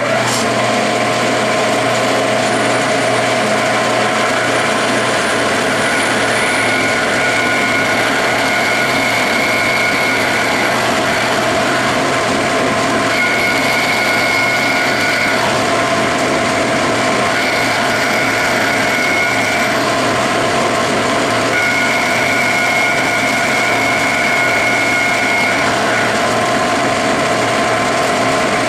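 Metal lathe running at about 200 RPM while an annular cutter bores into a solid brass bar. The machine noise is steady, with a high tone that comes and goes several times.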